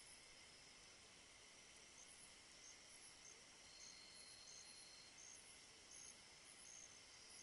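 Faint night chorus of insects such as crickets: a steady high hiss with short chirps repeating every half second or so, and a brief steady trill about four seconds in.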